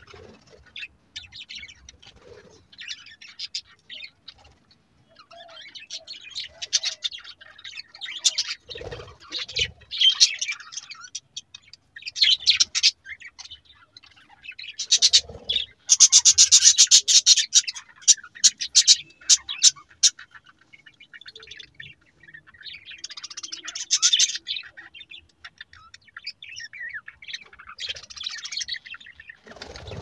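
A flock of budgerigars chirping and chattering in bursts, with a dense, loud run of rapid chatter about halfway through.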